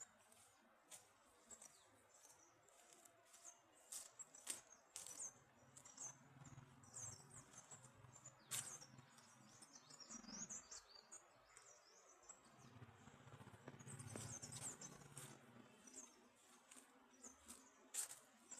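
Small birds chirping and twittering faintly: many short, high calls scattered irregularly.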